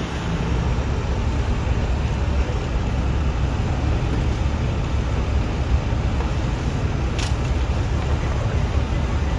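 Heavy diesel semi-truck running at a steady low rumble, with a short hiss about seven seconds in.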